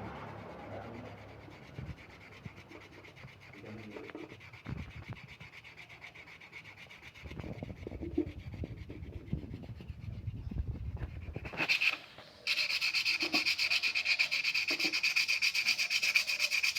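Sandpaper rubbing on the magnet of a concrete vibrator's electric motor. Light, irregular scraping and knocking gives way, about three-quarters of the way through, to a loud, steady, fast rasping.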